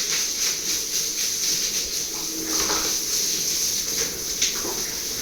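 Pigs giving a few short grunts and squeals over a steady high hiss, with a sharp tick near the end.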